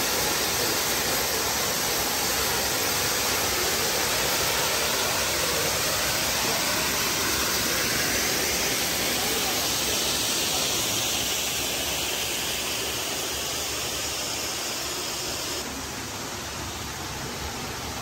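Upper Düden Waterfall rushing: a steady noise of falling water. It fades somewhat in the second half and drops suddenly in level near the end.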